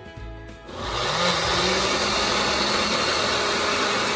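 Ninja blender motor starts about a second in, its pitch rising as it spins up, then runs steadily as it purées onion, ginger, garlic, hot peppers and herbs with oil in a single-serve cup.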